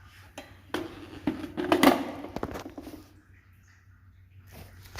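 Several light knocks and clatters of plastic toilet-cistern parts being handled as a new siphon is fitted, mostly in the first two seconds, with another click near the end.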